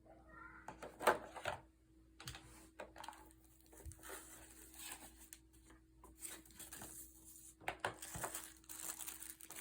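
Faint crinkling of a plastic accessory bag being handled and opened, with scattered light clicks of small plastic parts, over a faint steady hum.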